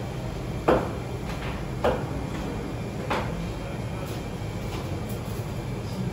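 Three sharp knocks, a little over a second apart, over a steady low hum.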